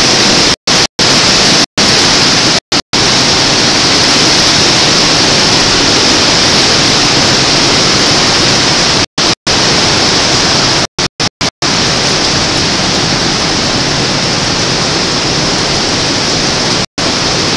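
Hurricane-force wind and driving rain make a loud, steady hiss. The sound cuts out to silence for an instant about a dozen times.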